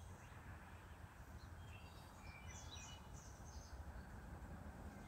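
Faint birds chirping and whistling in short, scattered notes over a low, steady rumble.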